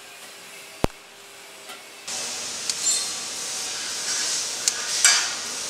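Welding arc on stainless steel sheet: a sharp click just under a second in, then about two seconds in the arc starts with a steady hiss and a few crackles.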